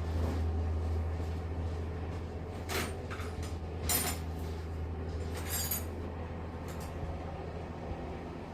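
Metal hand tools clinking and clattering a few times, about three seconds, four seconds and five and a half seconds in, as spanners are sorted through. Under them runs a steady low hum.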